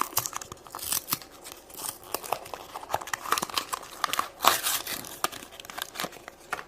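Plastic wrapping of a blind-pack toy being torn open and crinkled by hand: a dense run of irregular crackles and rustles.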